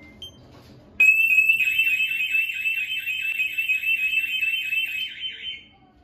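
SimpliSafe home alarm siren going off, triggered by a door opened while the system was armed and no PIN was entered. A pretty loud, high, warbling tone pulses about four times a second. It starts suddenly about a second in and cuts off near the end as the system is disarmed.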